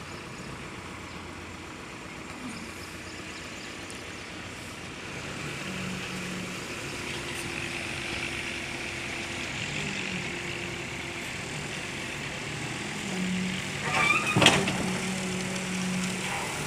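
Bulldozer running steadily. About fourteen seconds in there is a brief squeal with a sharp clank, the loudest moment.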